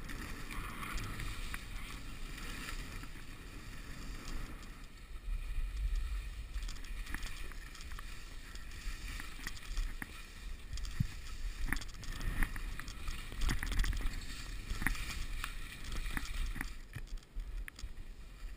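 Skis swishing and hissing through wet, rain-soaked snow on a descent, with a low rumble and scattered sharp clicks and knocks.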